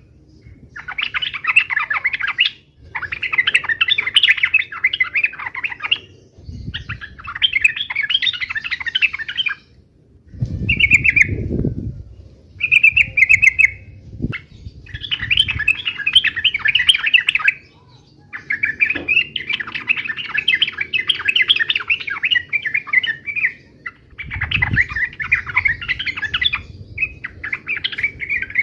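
Yellow-vented bulbuls (trucukan) giving harsh, rapid chattering fighting calls in bursts of a few seconds each, with short pauses between. A low rumble sounds under one short call near the middle.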